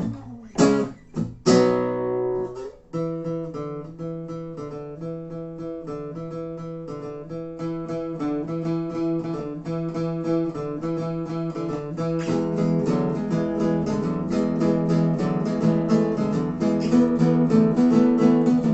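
Acoustic guitars playing an instrumental break: two hard strums at the start, then picked melody notes over a steady strummed rhythm that grows fuller and louder about twelve seconds in.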